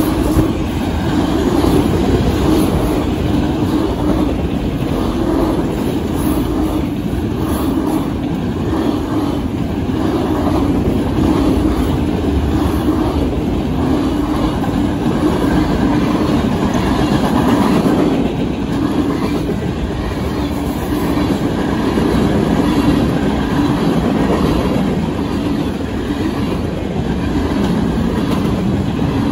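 Freight train of autoracks and covered hoppers rolling past at close range: a steady rumble of steel wheels on rail with a repeating clack as the wheel sets pass.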